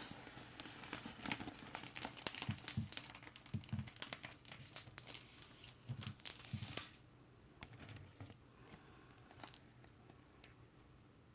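Crinkling and rustling of a vinyl LP's sleeve as the record is slid out and handled, with a few soft low bumps. It dies down after about seven seconds to faint, scattered clicks.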